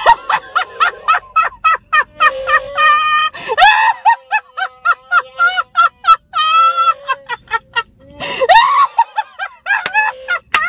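A woman laughing uncontrollably in rapid, high-pitched squeals and wheezes, mixed with the growls of an electronic Chewbacca mask that sounds as her mouth moves.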